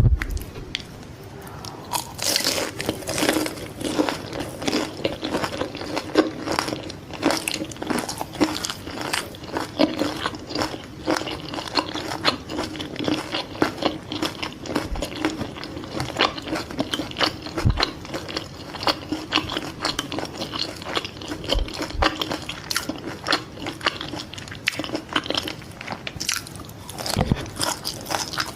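Close-miked chewing of fried fish balls, with rapid, continuous crunching.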